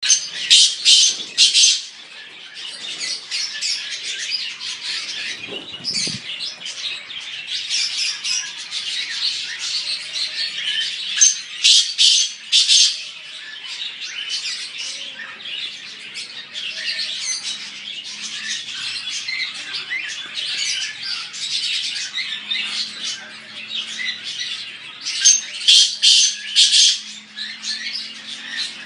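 A flock of cage birds chattering and squawking together in a dense, unbroken chatter. Louder bursts of squawks come near the start, around the middle, and near the end.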